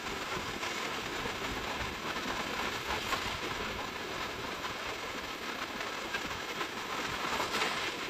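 Steady rushing outdoor noise on a sandy beach: wind buffeting the microphone over the wash of surf, with no clear single events.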